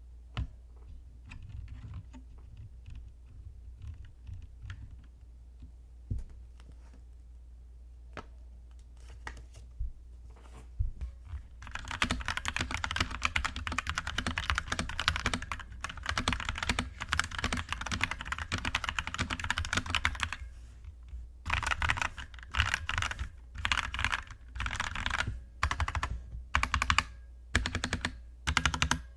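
Typing on an inexpensive mechanical keyboard. A few scattered keystrokes come first, then fast continuous typing starts a little before halfway, breaks off briefly, and goes on in short bursts.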